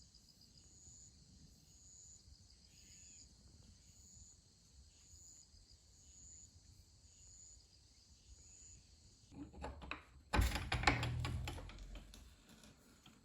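Insects calling: a high chirp repeating about once a second over a faint high buzz. About ten seconds in, a sudden loud rustling and knocking noise covers them for about two seconds.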